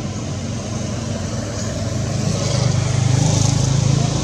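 A motor vehicle's engine running nearby: a low, steady hum that grows louder past the middle as the vehicle draws close.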